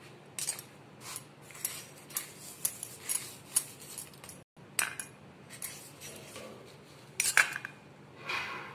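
A spoon clinking and scraping against a steel bowl and a ceramic plate while ghee is spread over stacked rotis: scattered light clicks, with a sharper clink about seven seconds in.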